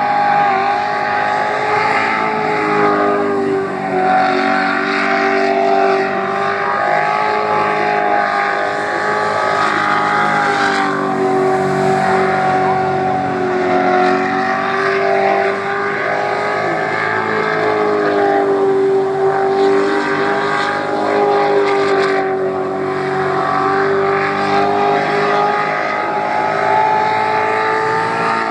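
Jet sprint boat's engine running loud and hard through a timed qualifying run, holding a steady high pitch that wavers only slightly.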